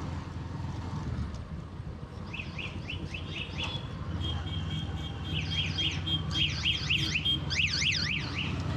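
A 100cc motorcycle engine runs steadily underneath. From about two seconds in, a high warbling sound rapidly sweeps up and down, several times a second, and grows louder toward the end.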